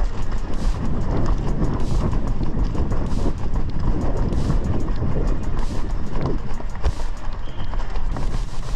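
Running footsteps of a sprinting orienteer on pavement, a quick steady beat of footfalls close to three a second, over a low rumble of wind on the head-mounted microphone.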